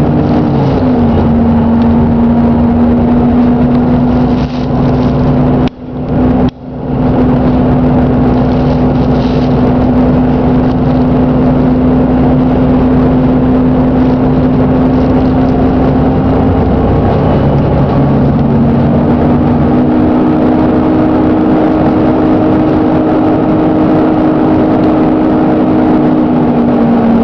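Double-decker bus engine running with a steady drone whose pitch drops about a second in and rises again about two-thirds of the way through; the engine has a bad knock. The sound cuts out briefly twice about a quarter of the way in.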